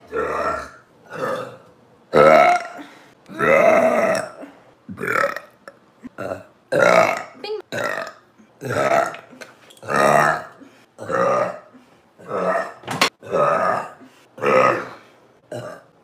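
A woman burping loudly, one burp after another at about one a second. Most are short, and a few are drawn out to about a second.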